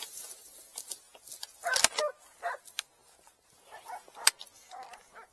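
A few short barks or yelps from hunting dogs, the loudest about two seconds in and fainter ones later, among sharp clicks and rattles of gear from a hunter on the move.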